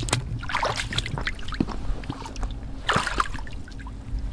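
Water sloshing and splashing as rubber boots wade through a shallow tide pool, with a louder splash about three seconds in.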